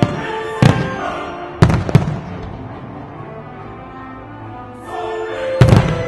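Aerial firework shells bursting with sharp bangs: four in the first two seconds and a quick double bang near the end. Music with held notes plays underneath.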